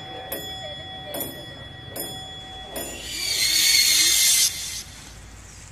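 Slow, even ticking, about one tick every 0.8 seconds, over a held high ringing tone. About three seconds in, a loud hissing whoosh swells up and cuts off suddenly a second and a half later.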